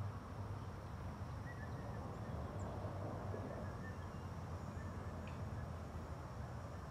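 Quiet riverside outdoor ambience: a steady low hum under a soft even hiss, with a few faint, short high chirps.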